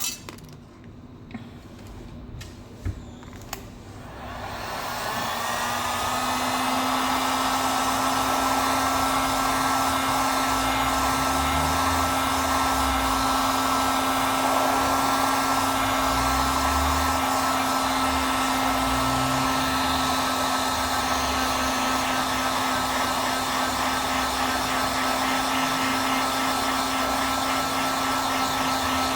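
A few light clicks, then a hot-air blower switches on about four seconds in, rising over a couple of seconds to a steady blowing whir with a steady hum. It is heating the screen to soften the glue so the cracked glass can be lifted off the LCD.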